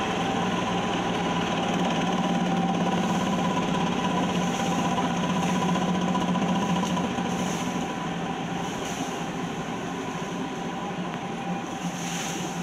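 Mini excavator's diesel engine running steadily, with a steady whine above the engine note. The sound eases slightly about seven seconds in.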